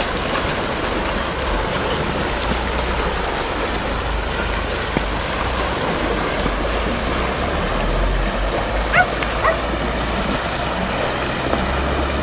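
Waves washing on a rocky shore with wind rumbling on the microphone, a steady wash of noise. About nine seconds in, two short rising high calls come half a second apart.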